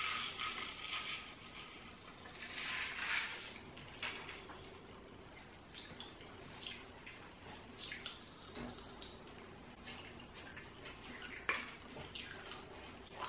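Pop Rocks popping candy faintly crackling and popping in a child's mouth as it dissolves, with irregular tiny pops and a couple of sharper knocks about two-thirds of the way through.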